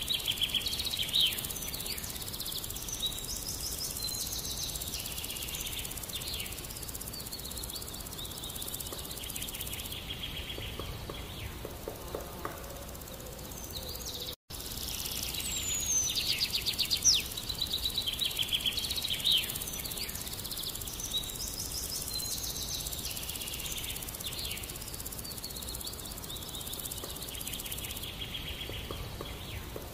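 Outdoor chorus of birds chirping and insects trilling: short chirps, quick pulsed trills and an occasional whistled glide, over a steady low background hiss. The sound cuts out for a moment about halfway through, then the same chorus carries on.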